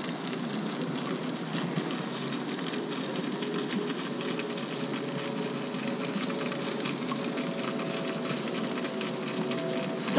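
Steady trickling and splashing of a sculpture fountain's recirculating liquid running out of the figure's chest, with a faint hum joining about halfway through.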